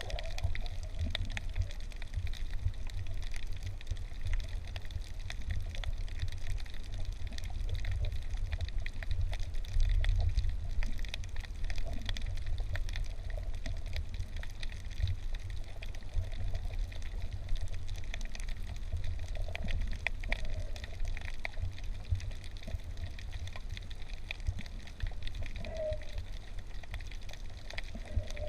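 Underwater sound picked up by a camera in its waterproof housing: a steady low rumble of moving water with a continuous fine crackle of clicks, and now and then a faint bubbling tone.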